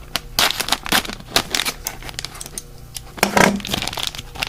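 Plastic mystery-figure blind bag crinkling and being torn open by hand, in irregular crackly rustles, with a short louder sound about three and a half seconds in.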